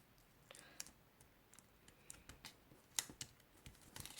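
Faint rustling and scattered small clicks of a sheet of origami paper being handled, folded and creased, the sharpest click about three seconds in.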